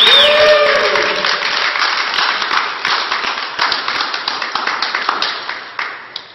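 A small crowd applauding, with the clapping dying away over the last second or so.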